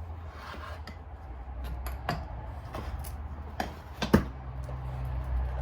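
Metal engine parts being handled during a teardown: a few sharp clicks and knocks, the loudest about four seconds in, over a steady low hum.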